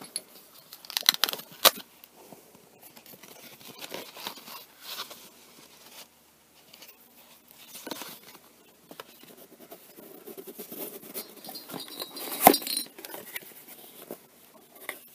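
Packaging handled and opened by hand: a pouch and a cardboard box rustled and scraped, with light clicks and clinks and one sharp knock about twelve seconds in.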